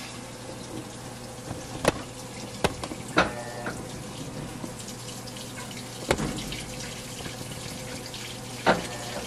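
Maytag top-load impeller washer filling: water splashing steadily into the tub over a faint low hum, with a few short sharp knocks.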